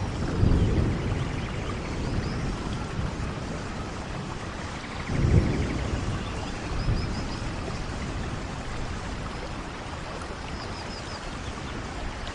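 Steady rain falling in a forest, with low thunder rumbles: a smaller one near the start and the loudest about five seconds in.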